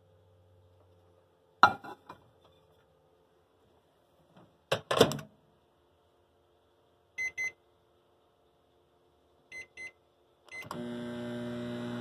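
A couple of knocks as the test piece is set into a Hamilton Beach microwave and the door is shut. Then come four short keypad beeps in two pairs. About ten and a half seconds in, the microwave starts running with a steady electrical hum.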